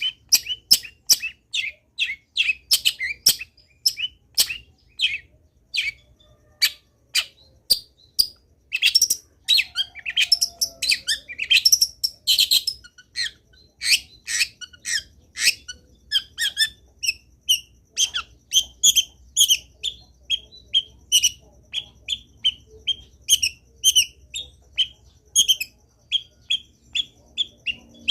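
Long-tailed shrike singing a fast, varied song of short, sharp notes packed with mimicked phrases, in a dense burst about a third of the way in.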